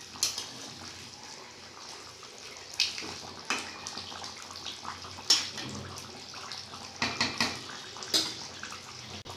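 Thick chicken curry gravy simmering in a wok: a steady bubbling hiss broken by sharp pops every second or two, with a quick run of them near the end.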